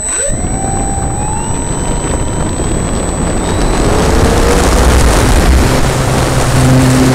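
The electric motor and propeller of a Phoenix 2000 RC glider starting up, its whine rising in pitch over the first couple of seconds, with a steady high whine above it. From about halfway through, wind and propeller rush over the airframe-mounted camera grows louder as the glider gets under way and climbs.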